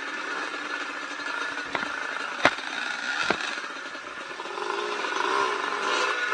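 Yamaha DT125 two-stroke dirt bike engine running at low revs, its pitch rising and falling as the throttle is worked. Three sharp knocks come in the middle, the second the loudest.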